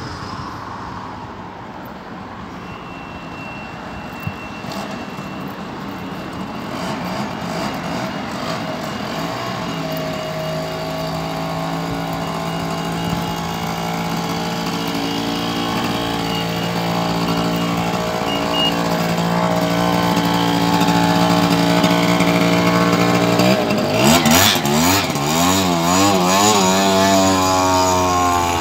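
A motor vehicle's engine running steadily and slowly growing louder as it approaches, then passing close by about three-quarters of the way through, its pitch wavering and sweeping as it goes past.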